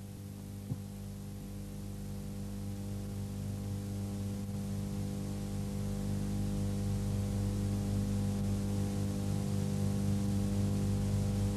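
Steady electrical mains hum with many overtones, slowly growing louder, with one sharp click about 0.7 s in.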